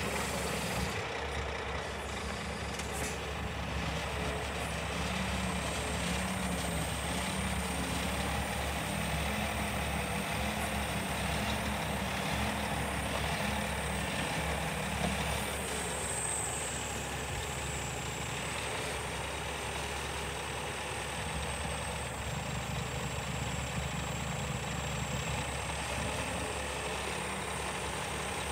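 Diesel engine of a Scania R480 hooklift truck running steadily, with a thin high whine over it.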